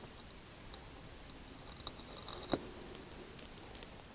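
Faint, close-miked mouth sounds of a person chewing a mouthful of creamy carbonara spaghetti: scattered soft wet clicks, with one sharper click about two and a half seconds in.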